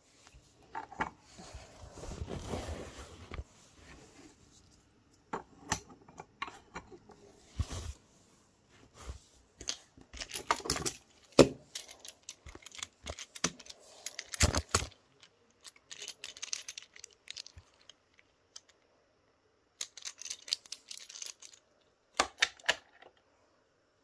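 Wooden Brio toy track pieces and toy trains being handled: irregular clicks, knocks and rustles in scattered clusters, with the sharpest knocks about halfway through.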